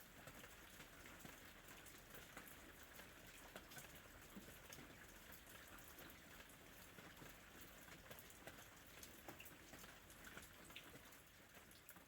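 Faint ambient rain: a steady hiss of rainfall with many small drops pattering.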